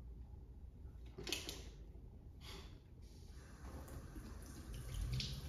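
Water running faintly from a kitchen tap into a stainless steel sink, starting about three seconds in. Two brief clatters come before it.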